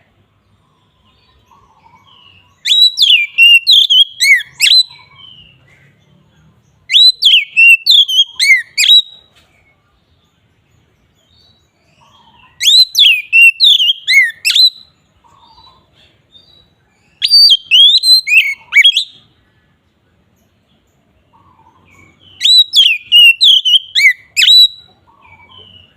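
Oriental magpie-robin (kacer) in loud, full song: five bouts of rapid whistled notes, each about two seconds long, with pauses of a few seconds between them.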